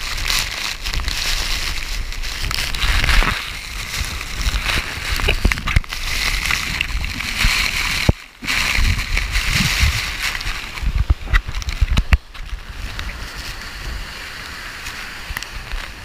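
Düden waterfall's falling water rushing and splashing close around the camera, with scattered sharp splashes and a short break about eight seconds in.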